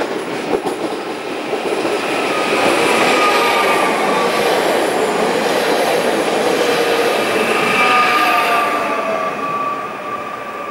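Pesa Elf II (22WEd) electric multiple unit running past close by along the platform: rolling wheel noise with a few clicks over rail joints at the start and high whining tones, some sliding down in pitch, easing off after about nine seconds.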